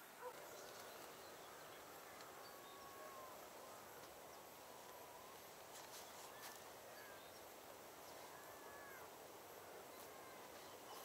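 Near-silent outdoor ambience with faint, short bird calls now and then and a couple of soft clicks about six seconds in.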